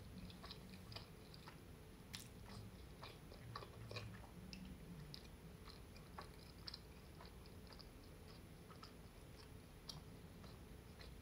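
Faint chewing of a mouthful of lasagna with the mouth closed: irregular small wet mouth clicks, over a low steady room hum.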